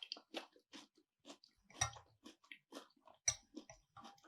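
A person chewing food: a run of soft, wet mouth clicks and smacks, about two or three a second, two of them a little louder in the middle.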